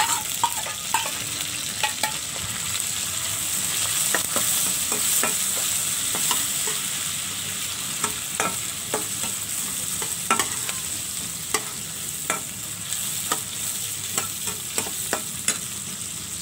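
Sliced onion, garlic and shallots sizzling in hot oil in a wok, with a steady hiss, while a metal spatula stirs them, scraping and clicking irregularly against the pan. The aromatics are being sautéed until wilted and fragrant.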